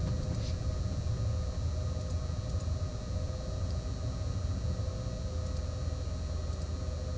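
Steady low background rumble with a faint steady hum, and a few very faint ticks.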